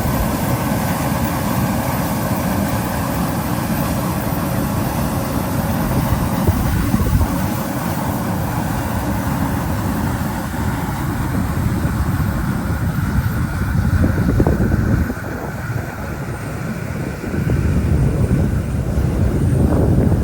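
Airbus A330 jet engines running loud: a steady, rumbling roar with a faint whine above it.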